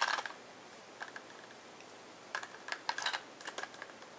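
Small plastic clicks and taps of AA batteries being pushed into a handheld infrared thermometer's battery compartment and its plastic battery door snapped shut. There is one sharper click at the start, a light tap about a second in, then a quick run of clicks in the second half.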